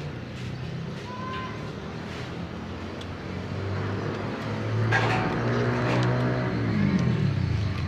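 A motor vehicle's engine, growing louder about halfway through, then dropping in pitch near the end as it passes by.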